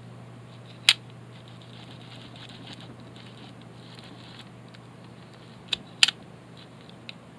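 Small parts and tools handled on a hard work surface while a fishing reel is taken apart: a sharp click about a second in, two more close together near six seconds and a small one just after, with faint light ticking and rattling in between, over a steady low hum.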